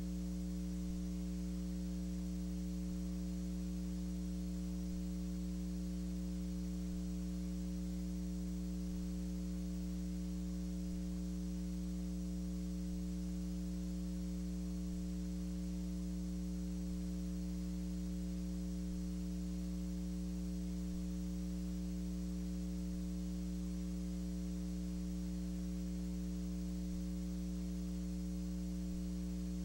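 Steady electrical mains hum with a faint hiss, unchanging throughout: the tape or transfer noise of a silent film with no sound of its own.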